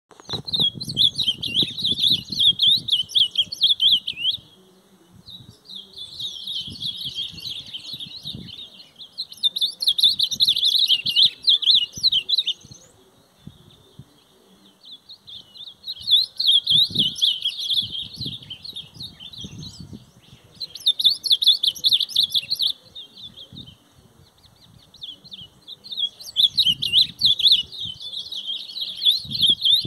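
Caged songbird singing long, rapid twittering songs in phrases of three to four seconds, with short pauses between phrases. Low rumbles come and go underneath.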